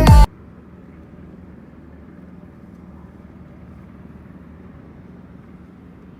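Background music cuts off abruptly just after the start, leaving a faint, steady low rumble with a light hum.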